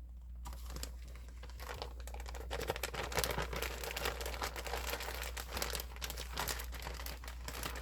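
Plastic packaging of a cross-stitch kit crinkling as it is handled, starting about half a second in as a dense, continuous crackle of small clicks.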